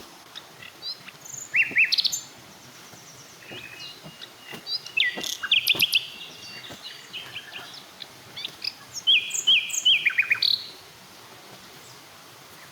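Wild birds chirping and trilling in three bursts of quick, high calls, about a second and a half in, around five to six seconds in and around nine to ten seconds in, over a faint steady background hiss.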